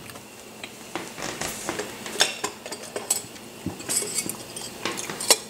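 Split urad dal and a spoon clinking into a dry metal frying pan: a scatter of small irregular clinks and taps.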